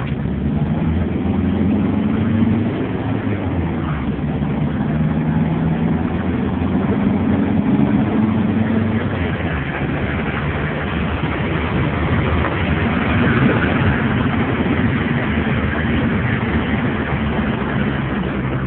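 Steady engine hum and road noise of a car driving along slowly, with the engine's pitch drifting a little up and down.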